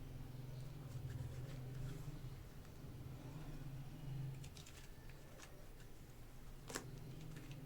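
Light scattered clicks and taps from handling packaged super clay and its plastic containers, with one sharper click near the end, over a low steady hum.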